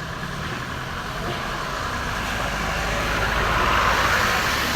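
Darjeeling toy train running, with a low rumble and a hissing rush that swells toward the end.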